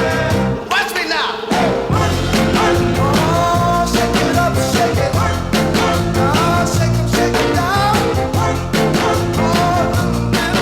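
Music with singing over a steady, driving beat.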